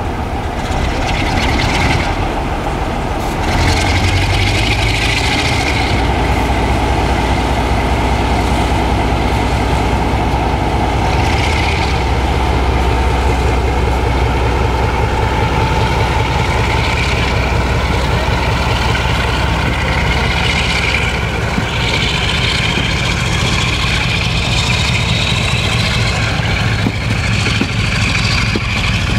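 Class 47 diesel locomotive's Sulzer twelve-cylinder engine running under load as it pulls a train slowly away, getting louder about four seconds in and staying steady. Over the last several seconds a thin rising whine joins it.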